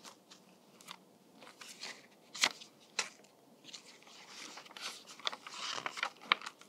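Quiet handling of a hardcover picture book: the cover opened and pages turned, with paper rustling and sliding and a scatter of small taps and clicks, the sharpest about two and a half seconds in. The rustling thickens over the last couple of seconds as the pages are leafed through.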